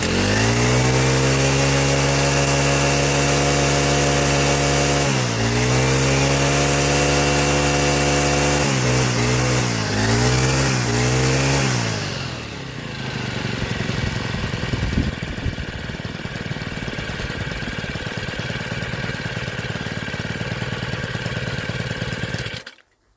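Stihl FS65-4 strimmer's single-cylinder four-stroke engine running at high revs, dipping and picking back up twice, then blipped a couple of times before dropping to a lower, rougher idle about twelve seconds in. Near the end the engine cuts out suddenly.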